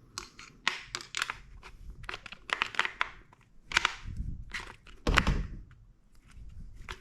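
Clicks, taps and knocks of a B&T KH9SD's trigger group being handled and lined up against the receiver during reassembly, with a louder thunk about five seconds in.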